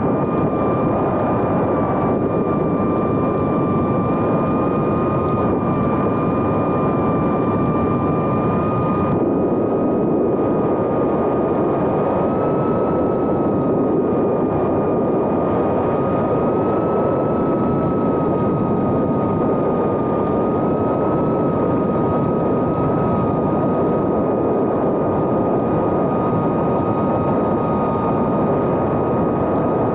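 2.5-inch FPV whoop drone's Happymodel 1404 brushless motors and propellers in flight: a steady, loud high whine over a rush of propeller noise, its pitch drifting slightly up and down with the throttle.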